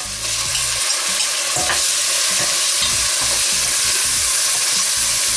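Chicken pieces and freshly added sliced mushrooms sizzling in hot oil on high heat while being stirred in the pan. The sizzle swells within the first second and then holds steady as the mushrooms start to release their water.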